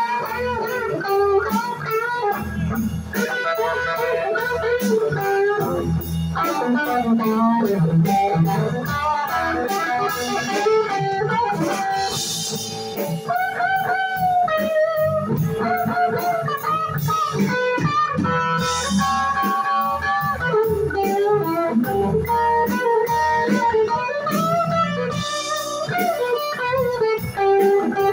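Live blues-rock band playing: an electric guitar carries a lead line with bent notes over bass guitar and a drum kit, with a cymbal crash every several seconds.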